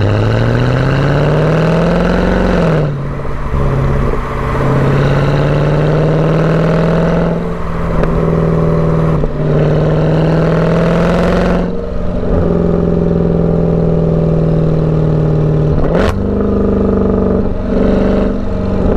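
2014 Mercedes C63 AMG's 6.2-litre V8 through an exhaust with the secondary cats and resonators deleted, pulling hard with its pitch climbing, cut short by several brief dips as the throttle lifts or a gear changes. Later it settles to a steady drone, with one sharp crack near the end.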